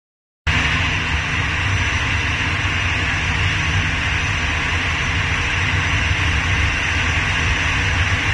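Four CFM56 turbofan engines of an Airbus A340-313E at taxi power, a steady jet rumble and hiss that cuts in abruptly about half a second in.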